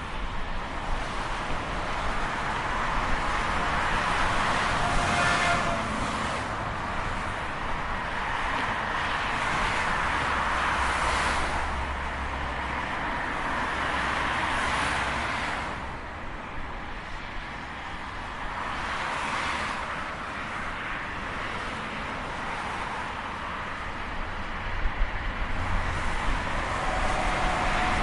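Highway traffic: a steady rush of tyre and engine noise from vehicles passing at speed, swelling and fading every few seconds as individual cars go by.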